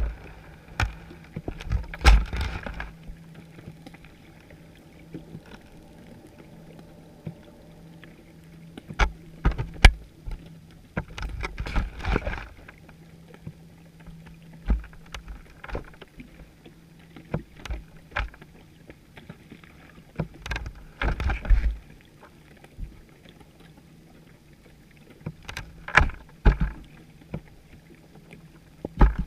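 Irregular muffled knocks, taps and bumps, some in quick clusters, with brief swishes of water, picked up underwater by a GoPro in its waterproof housing on a chum pot rig. A faint steady low hum runs underneath.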